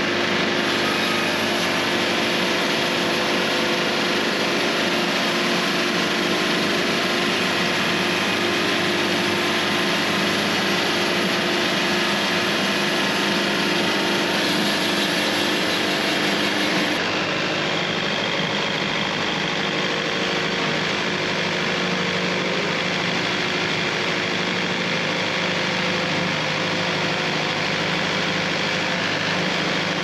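Wood-Mizer LT70 band sawmill running steadily, its engine and band blade sawing boards off a sycamore log. The tone shifts slightly about 17 seconds in.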